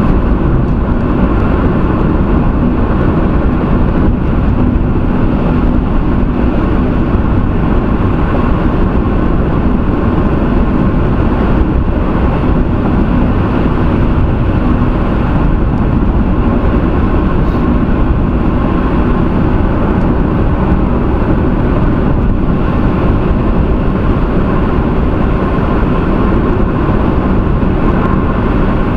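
Steady road and engine noise inside a car cruising at highway speed, a constant low drone with no sudden events.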